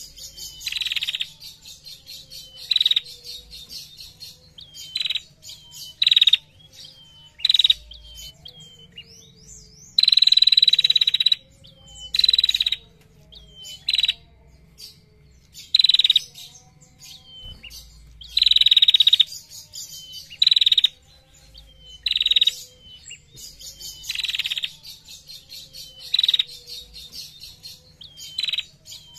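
A caged female prenjak (prinia) calling over and over with short, sharp, buzzy notes every second or two. A few longer buzzing trills come about 10 and 18 seconds in. This is the rapid 'ngetir' call prized in tutor recordings.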